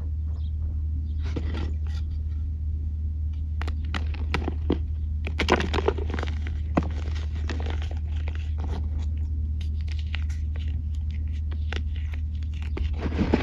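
Dry, crusty dirt chunks crumbling and crunching in a hand, with gritty bits trickling and clicking back into the pile in scattered crackles that are thickest about four to six seconds in and again near the end. A steady low hum runs underneath.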